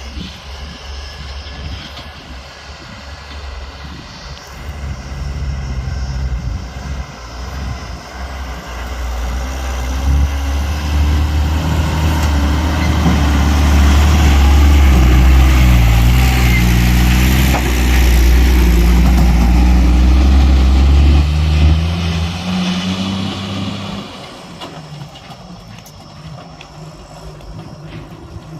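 Heavy diesel engine of an earthmoving vehicle working, its engine speed rising and falling. It grows louder over the first half, stays loudest for several seconds, then drops away about two-thirds of the way through.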